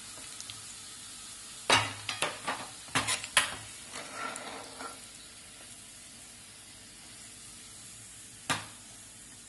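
Hot oil sizzling in a pan as golden-brown fried onions are lifted out with a steel ladle. A quick cluster of metal clinks and knocks of the ladle against the pan about two to three seconds in, some light scraping after, and one more knock near the end.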